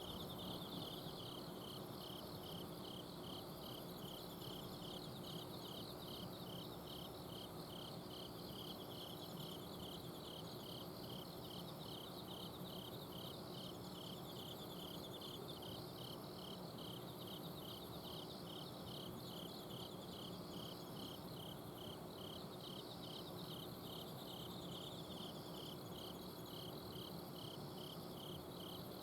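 Several autumn crickets singing at night: one repeats an even, high chirp a little under twice a second, while higher trills swell and fade every few seconds. A steady low hum from an air conditioner's outdoor unit runs underneath.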